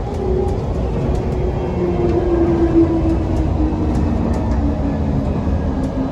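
Airport people-mover train running, with a low rumble and a motor whine that falls in pitch through the second half.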